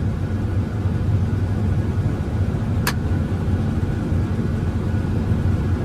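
Combine harvester running steadily while harvesting corn: a steady low drone of engine and machinery, with a single sharp click about three seconds in.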